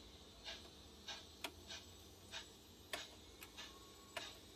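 Model railway turntable turning its bridge, its drive giving faint, regular ticks about every half second, with three sharper clicks among them.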